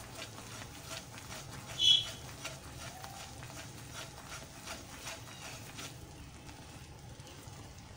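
A silicone spatula stirring foaming jaggery syrup in a nonstick pan: a run of quick soft clicks and scrapes that thins out about six seconds in, as the jaggery froths and starts to cook. A short high-pitched chirp about two seconds in is the loudest sound.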